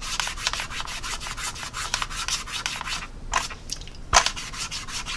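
Paper towel rubbed quickly back and forth over a plastic scale model's painted surface, wiping off dried panel-line wash: a fast run of scratchy strokes for about three seconds, then a few single wipes, the loudest a little after four seconds.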